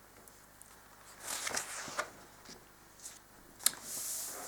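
Faint paper rustling with a few light clicks and a sharp tap near the end, typical of a picture-book page being turned.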